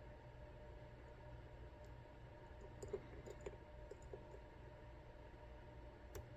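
Faint small metallic clicks of a lock pick working the side pins of an ASSA Twin 6000 high-security lock, a quick cluster of them about three to four seconds in, over near-silent room tone.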